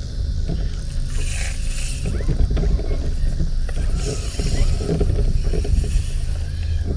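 Wind buffeting the microphone in a steady low rumble, with two short swells of hiss, about a second in and about four seconds in.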